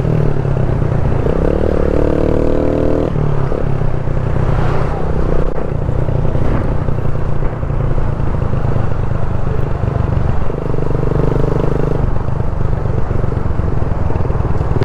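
Motorcycle engine running steadily while riding at road speed, heard from the rider's seat, with wind and road noise rushing over the microphone.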